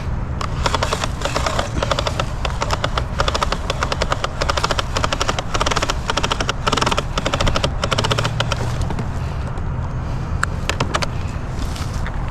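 Rapid, irregular rattling clatter, like loose items shaking in a moving vehicle, over a steady low vehicle engine drone. The rattle eases off about 11 seconds in.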